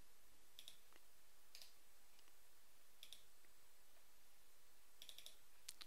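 Faint computer mouse clicks over near-silent room tone: single clicks every second or so, then a quick cluster of clicks near the end.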